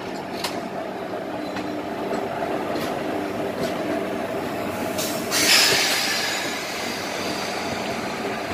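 Passenger train running slowly, heard from an open coach door: a steady rumble of wheels on rail with faint squealing tones and occasional clicks. A sudden loud hissing rush comes about five seconds in and fades over a second.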